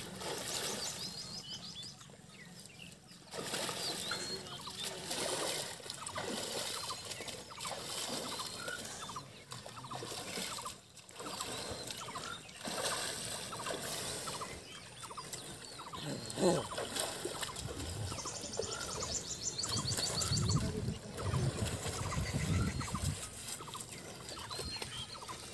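Water splashing and trickling as water buffaloes wade and are scrubbed by hand in a muddy pond, with many short bird chirps and a low rumble near the end.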